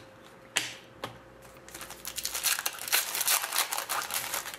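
Foil wrapper of a hockey card pack being crinkled and handled. There are two short sharp sounds about half a second apart, then about three seconds of dense crackling.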